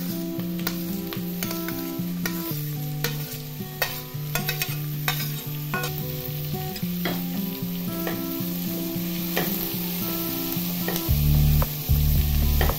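Chopped carrot, capsicum and beans tipped from a steel bowl into onions frying in oil in a pressure-cooker pot: the vegetables sizzle while a spoon scrapes and taps against the bowl and pot. Near the end they are stirred. A background music track plays underneath.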